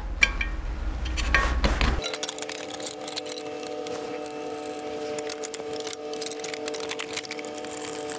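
Small hard parts and tools clinking and rattling as they are handled, with light irregular clicks throughout. About two seconds in, steady background music comes in under the clinking.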